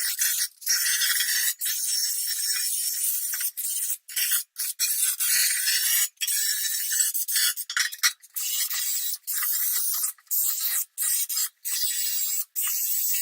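Wire brush scouring a metal engine part to strip it for paint: a harsh, hissy scraping in runs of a second or two, stopping and starting many times.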